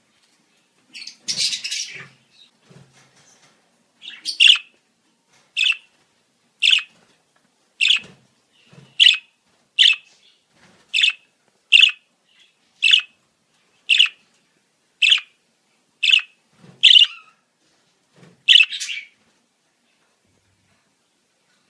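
Budgerigar calling: a brief burst of chatter, then a run of about a dozen short, sharp chirps, roughly one a second, that stops near the end.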